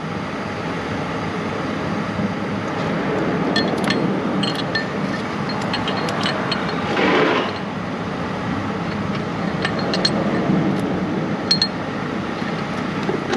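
Scattered light metallic clinks and taps as a starter mounting bolt and the replacement starter are handled and fitted by hand. There is a brief scraping rub about seven seconds in, over a steady background hum.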